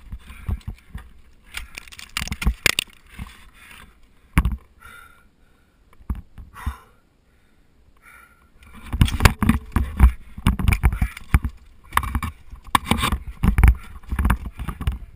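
Ice axe picks and crampons striking and scraping on waterfall ice, heard close up on a helmet camera: a handful of sharp knocks early, a quiet pause in the middle, then a rapid run of strikes over the last six seconds.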